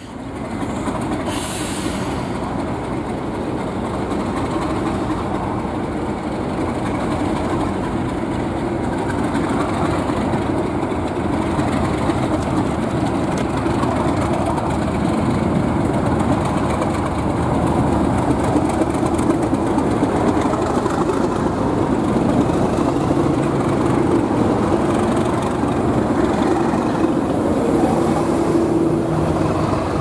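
Snowplough train hauled by two Class 37 diesel locomotives passing at speed, engines and wheels on the rails making a steady loud noise that starts abruptly.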